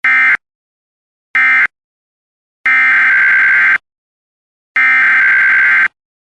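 Emergency Alert System SAME digital data bursts. First come two short end-of-message bursts that close the previous alert. After a pause, two longer header bursts open the next alert, about a second apart.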